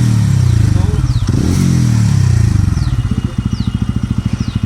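TVS Ronin 225's single-cylinder engine revved twice, each time dropping back, then settling into a steady idle about three seconds in. Its engine-side chain sprocket has been freshly replaced to cure a bad chain noise, and the owner says there is no noise at all now.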